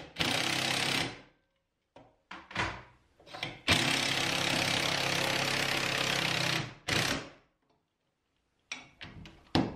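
Cordless DeWalt impact driver driving 2.5-inch Torx screws through a steel wall bracket into a wood stud. There is a short run right at the start, a couple of quick blips, then one long steady run of about three seconds. A shorter burst follows, and a few light clicks near the end as the screw is snugged down.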